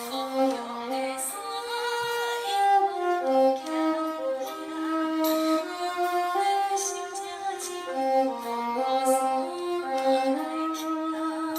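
Flute and violin playing a slow melody in long held notes that move stepwise, with vibrato on the notes near the end.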